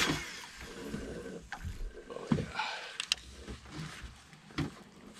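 Handling sounds of casting and retrieving with a fishing rod on a boat: a low rumble with scattered small clicks and knocks, one sharper click about three seconds in.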